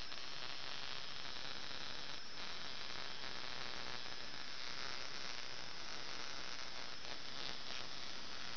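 Homemade violet ray machine running: its very small spark gap firing with a steady hiss, along with the cooling fans over the power supply and under the spark gap.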